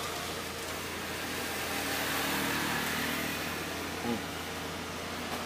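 Street traffic: a motor vehicle's engine running past over a steady background hum of road noise.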